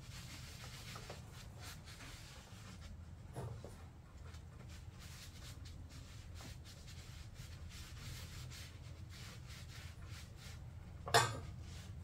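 A rag scrubbing the metal head-gasket surface of a Club Car DS engine clean, in faint, irregular rubbing strokes over a steady low hum. A single sharp knock comes about eleven seconds in.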